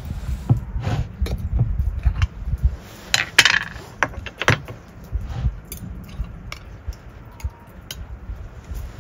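Metal utensils clinking and scraping against a large glass jar of pickled tomatoes as it is opened and a tomato is fished out with a fork. The clinks come in a quick irregular string, loudest about three and a half seconds in, over low handling knocks.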